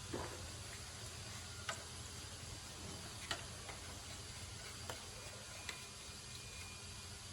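Scattered sharp light clicks, about half a dozen at irregular intervals, over a steady hiss, with a faint brief high tone near the end.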